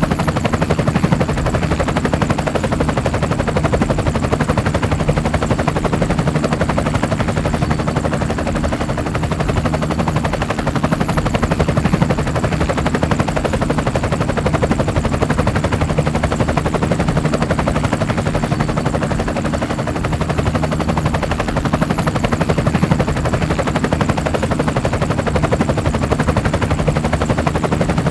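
Engine of a small off-road vehicle running steadily at a rapid, even pulse as it drives along a dirt track.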